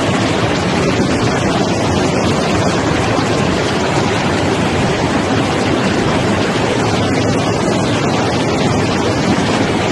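Chicken-feet skin-peeling machine running, with water spraying over the feet churning in its steel trough: a loud, steady rush of machine and water noise.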